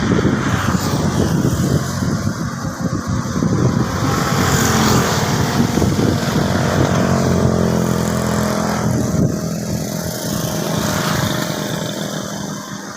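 A motor vehicle engine running close by, its pitch gliding up and down, growing louder through the middle and easing off near the end as it passes.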